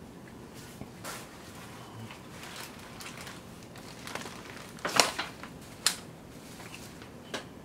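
Scattered sharp clicks and knocks over a faint steady hiss, the loudest cluster about five seconds in and another single sharp knock about a second later.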